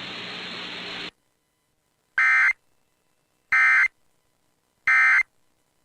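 Emergency Alert System end-of-message data bursts: three short, buzzy digital chirps about 1.3 seconds apart that signal the end of the alert. Before them a steady hiss cuts off about a second in.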